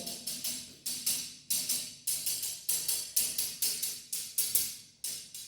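Steel tool tapping on wall ceramic tiles, a quick run of sharp metallic taps at about two to three a second, each with a short ring. This is the solid sound of a tile bonded firmly to the wall with no air gap behind it.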